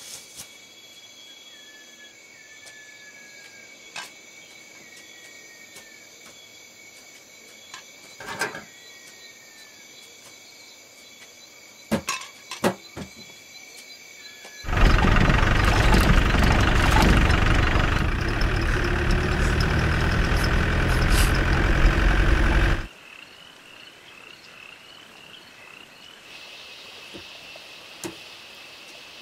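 Steady insect trilling with a few faint knocks and chirps, then a loud rumbling noise for about eight seconds that starts and stops abruptly.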